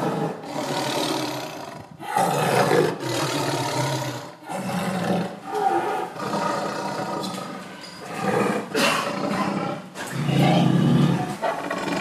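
Big cat roaring and growling in a run of loud calls, about one every second or so.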